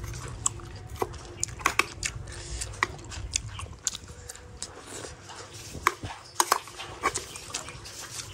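Close-up eating: chewing a mouthful of rice and beef soup, with scattered sharp clicks and smacks as a spoon is worked against the bowl and tin, the loudest about six seconds in.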